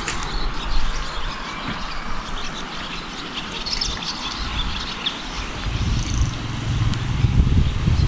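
Outdoor garden ambience: small birds chirping over a steady background haze, with a low rumble that grows louder in the last couple of seconds.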